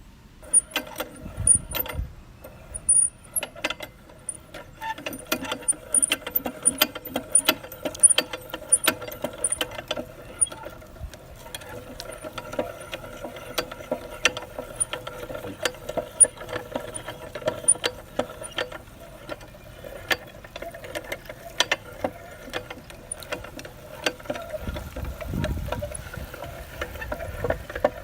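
Meat grinder running with a steady hum, crushing Orbeez water beads with many sharp clicks and pops, busiest in the first ten seconds.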